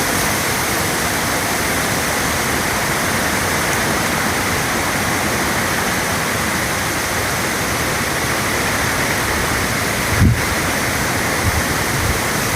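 Steady rush of flowing stream water, with a short low thump about ten seconds in and two fainter ones near the end.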